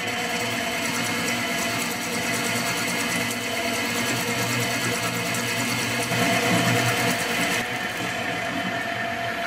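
Victor metal lathe running under power while the tool faces the bandsawn end of a metal workpiece, the end a little out of true from the saw cut, with a fast even ticking over the steady machine sound. The cut grows louder about six seconds in, then the high cutting hiss stops as the tool reaches the centre of the face.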